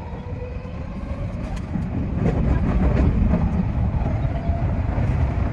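Odakyu 3000-series commuter train running on the rails, heard from the driver's cab: a steady rumble of wheels on track that grows louder about two seconds in, with a faint whine and a few rail clicks.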